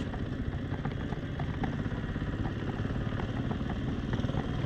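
Yamaha R15 V3's 155 cc single-cylinder engine running steadily, heard close up from the rider's camera.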